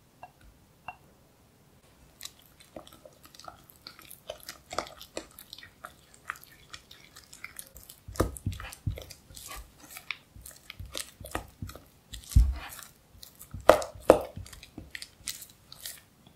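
Spatula stirring and beating soft cream cheese in a glass bowl: a busy run of wet squelches and scraping clicks that starts about two seconds in, with a few louder thumps about halfway through and near the end.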